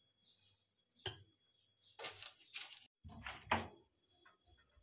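Kitchen clatter of a metal spoon on a glass mixing bowl and a metal baking tray being handled at the oven: a single click about a second in, then two short spells of rattling and scraping, the second ending in a sharp knock.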